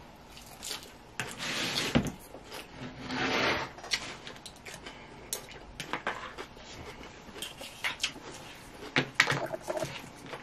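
Chewing and crunching of a mouthful of lettuce salad, with scattered clicks and scrapes of a plastic fork against a wooden salad bowl and a paper plate.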